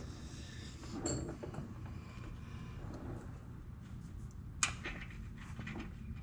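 Jeep track bar and its mounting hardware being worked into place: faint scraping with a brief metallic clink about a second in and a sharper knock later on.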